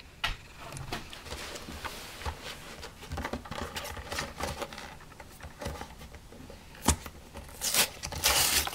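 Hands handling a small cardboard box: fingers rubbing and tapping the cardboard, with a sharp click about 7 s in and louder scraping of cardboard near the end as the box's top flap is worked open.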